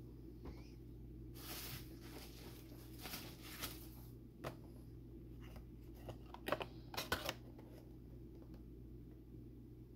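Faint rustling of bubble wrap and cardboard as a hand rummages in a packed shipping box, then a quick cluster of sharp clicks and taps, the loudest sounds, about two-thirds of the way in, as a boxed vinyl figure is lifted out and handled. A low steady hum lies underneath.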